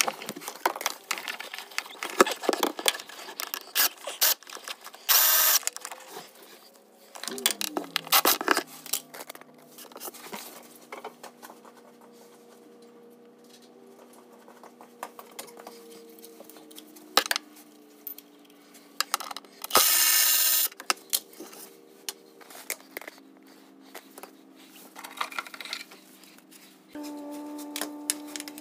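Short spurts of a cordless power tool running fasteners, the longest about a second, mixed with clicks and clatter of tools and parts being handled. A steady low hum of several tones sets in about seven seconds in.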